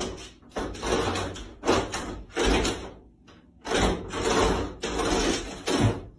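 A closed interior door scratched, rattled and bumped in repeated short bursts by a dog on the other side, with a pause about three seconds in, until the door swings open near the end.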